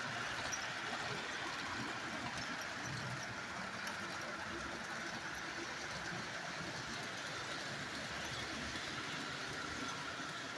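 Model trains running on a layout: a steady whir and rumble of wheels on track and small motors.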